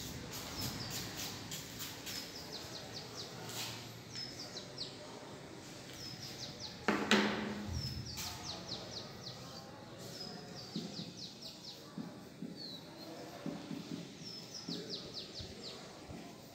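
A small bird singing the same short phrase over and over, every few seconds: a high falling whistle followed by a quick run of notes. A brief louder noise comes about seven seconds in.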